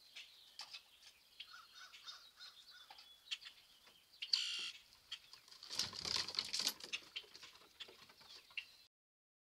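Small birds chirping outdoors, with scattered sharp clicks. A short harsh call comes a little after four seconds in, and a louder rustling flutter follows around six seconds.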